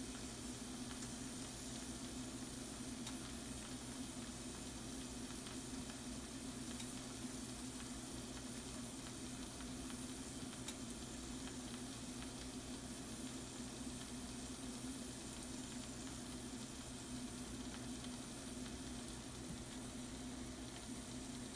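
Shrimp and mushrooms sizzling in a skillet of pan juices: a steady frying hiss with faint crackles, over a steady low hum.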